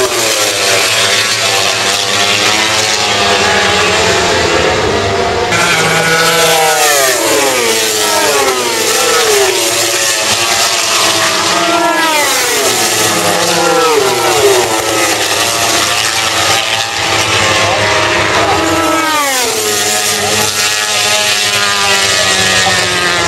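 Several racing motorcycles passing at speed one after another. Their high engine notes repeatedly fall in pitch and jump back up as the riders brake and shift down.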